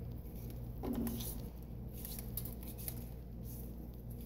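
Bare hands rubbing olive oil and seasoning over a raw potato: faint wet rubbing and patting, with a slightly louder soft squish about a second in, over a low steady hum.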